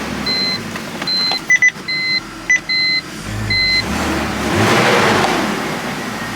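BMW E46 dashboard warning chime beeping repeatedly, with a few clicks, then the engine cranks and starts about four and a half seconds in and settles to a steady idle. The idle is free of the earlier misfire after the ignition coil was replaced.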